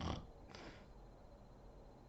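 A sleeping woman snoring: a short, loud snort right at the start, followed by a breathy exhale about half a second later.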